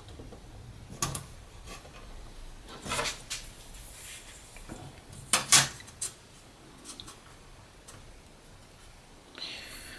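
Handling noise on a workbench during layout of an aluminium sheet: scattered light knocks, clicks and rubs, with the loudest a quick double clatter about halfway through.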